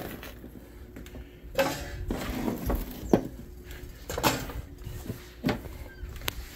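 Kitchen clatter: dishes and utensils knocking and clinking about half a dozen times at irregular intervals.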